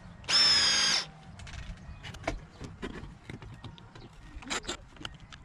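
Cordless drill/driver whirring briefly from about a third of a second to one second in, backing out the screws of a plastic modular circuit breaker's housing. After that come scattered small clicks of the screws and plastic case being handled.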